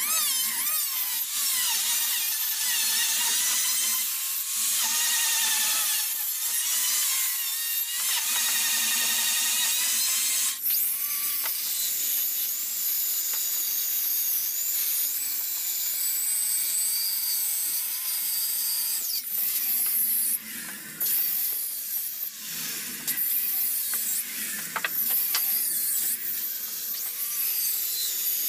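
Electric hand planer running and shaving a timber beam, its whine wavering under load. About ten seconds in it gives way to a handheld circular saw cutting lengthwise along the wood, a steady high whine with a few brief dips later on.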